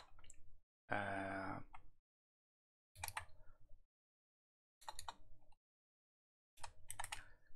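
A man's drawn-out wordless "hmm", about a second long, followed by three short bursts of typing on a laptop keyboard.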